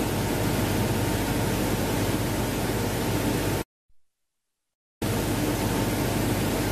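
Steady hiss with a low electrical hum from the auditorium's sound system during a mic check. It cuts out to dead silence for about a second and a half a little past the middle, then comes back unchanged.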